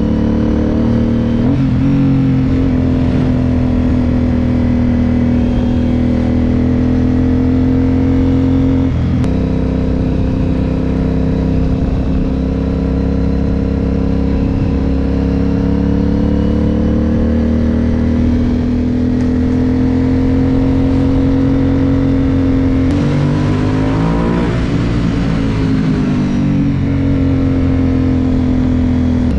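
Aprilia Dorsoduro 750's 90-degree V-twin engine heard onboard while cruising at a steady road speed. The engine note drifts gently up and down, with a short change in revs about three-quarters of the way through.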